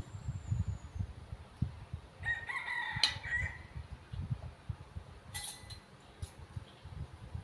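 A rooster crowing once, about two seconds in, for a little over a second.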